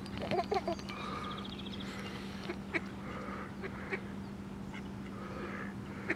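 Mallard ducks quacking on and off in short calls, with a few sharp clicks and a steady low hum underneath.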